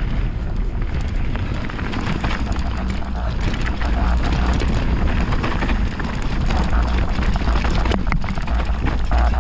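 Mountain bike running fast down a rocky, loose trail: tyres crunching over stones and the bike clattering with constant small knocks. A deep wind rumble on the microphone runs under it.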